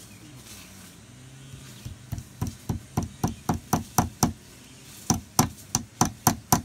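Hammer tapping a small nail into a wooden beehive frame: quick light strokes about four a second that start about two seconds in and grow louder, stop briefly, then start again near the end.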